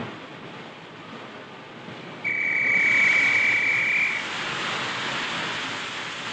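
A railway whistle sounds one steady high note for about two seconds, starting about two seconds in, as a loud rushing hiss swells up at the same moment and carries on.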